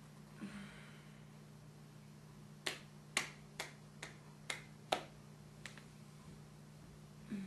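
Six sharp clicks, about two a second, over a steady low hum.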